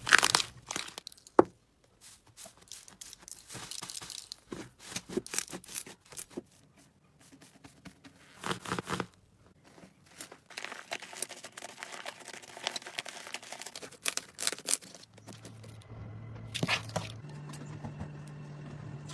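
Slime being squished and pressed by hand, giving irregular crackles and sharp pops. A steady low hum comes in during the last few seconds.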